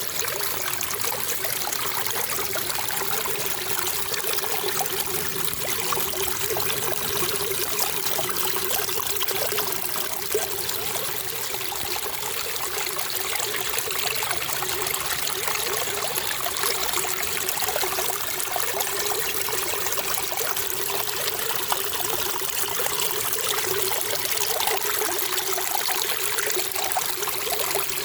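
Running water trickling and flowing steadily, a continuous splashing rush with no pauses.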